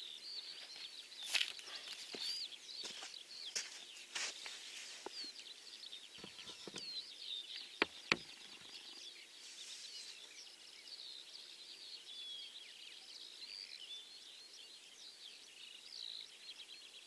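Small songbirds chirping and twittering continuously, many short rising and falling calls overlapping, with a few sharp clicks and knocks; the loudest two come close together about eight seconds in.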